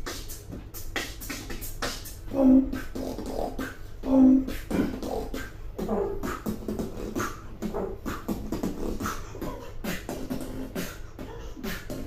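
Human beatboxing: a fast rhythm of mouth-made kick, snare and hi-hat clicks layered with pitched vocal hums, with two loud held vocal notes about two and a half and four seconds in.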